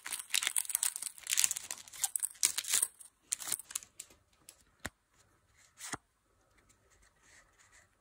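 Foil Pokémon booster pack wrapper being torn open and crinkled: dense tearing and rustling for about the first three seconds, then a few sparser crinkles and two sharp ticks.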